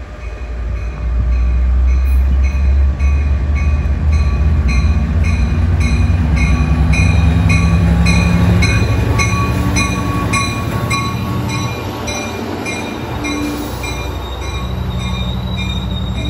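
Sounder commuter train pulling into the platform and rolling past: a heavy low rumble from the bilevel coaches that builds about a second in, with a bell ringing steadily about twice a second and a thin steady wheel squeal.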